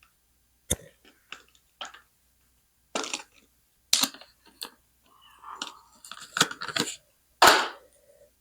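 RAM modules and their hard plastic packaging being handled: a series of sharp clicks and short crinkles, with a louder crackle near the end.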